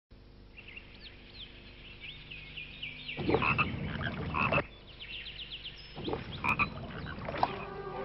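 Frogs croaking in loud rasping runs over a background of birds chirping.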